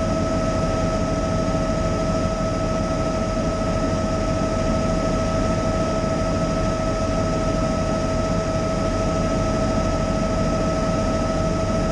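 Helicopter in flight heard from inside the cockpit: a constant rumble of engine and rotor noise with a steady high whine over it.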